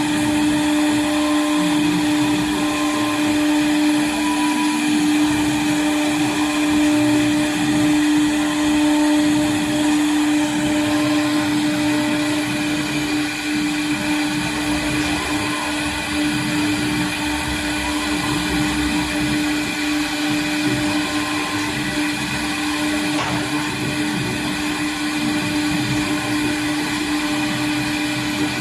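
TechPro 1212 CNC router's spindle running at speed, a steady whine with rough cutting noise under it as the bit carves wood.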